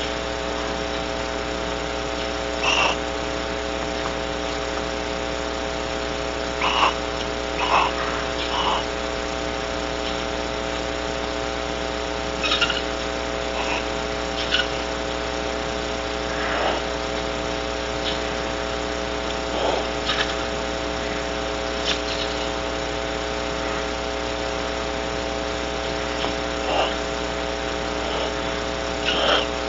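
Steady electrical hum with several fixed tones, the buzz of a nest-box camera microphone, broken every few seconds by short calls from outside the box.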